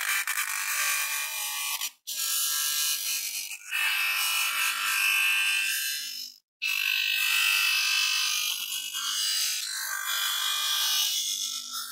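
Thin clear plastic being handled and crinkled between the fingers: a dense crackling rustle in three stretches, cut off sharply twice.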